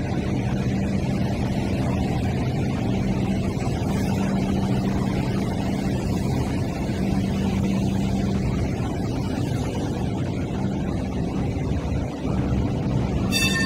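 Steady low machine hum over a rumbling background, with no distinct events. Music comes in just at the end.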